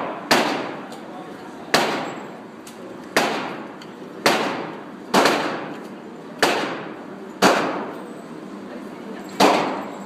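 Gunshots fired one after another: about eight shots at uneven intervals of one to two seconds, each sharp crack trailing off in a short echo.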